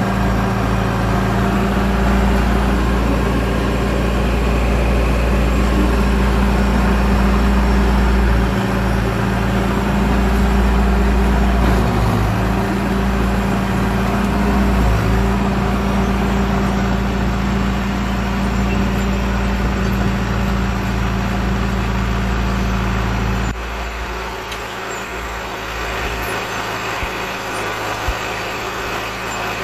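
John Deere 450B crawler dozer's freshly overhauled four-cylinder diesel engine running steadily as the machine works dirt. About three quarters of the way through, the engine note drops and the sound gets quieter.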